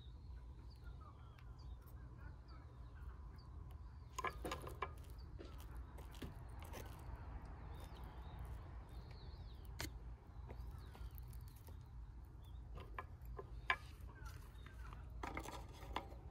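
Faint bird chirps and calls over a low, steady outdoor rumble, with a few scattered clicks and knocks: a small cluster about four seconds in, single ones near the middle and later, and another cluster near the end.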